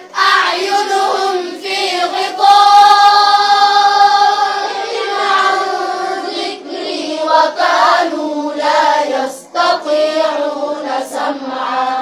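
A group of young girls' voices chanting together in unison, with long held notes.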